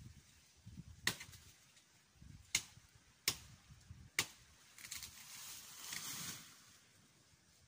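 Four sharp chopping strikes into woody stalks and brush, spaced about a second apart, followed by a longer rustle of leaves and branches being pushed about.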